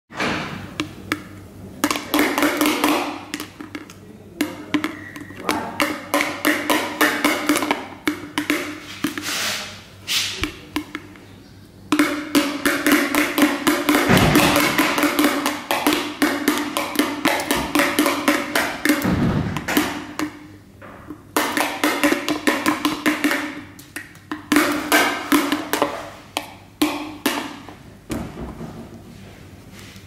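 Homemade spinning rattle: a plastic lid on a wire axle, twirled so that a bead on a string slaps against it, giving fast runs of tapping clicks. The clicks come in bursts of a few seconds with short lulls, the longest burst about halfway through, and there are a couple of deeper thuds.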